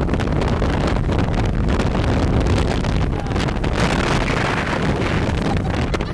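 Wind buffeting the microphone on a speedboat under way, over the boat's motor and water rushing along the hull, with a brighter rush of water about four seconds in.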